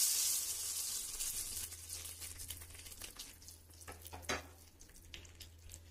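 Hot ghee tadka with cumin seeds and dried red chillies sizzling as it hits a bowl of mung dal: a loud hiss that dies away over the first couple of seconds into faint scattered crackling, with one sharp click about four seconds in.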